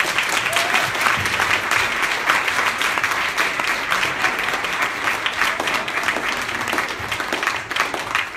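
Audience applauding, a dense, steady clapping that begins to thin out near the end.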